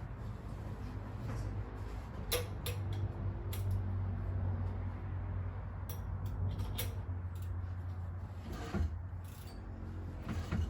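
Scattered metallic clicks and knocks of a wrench working as the engine is turned over by hand from under the car. A steady low hum runs underneath.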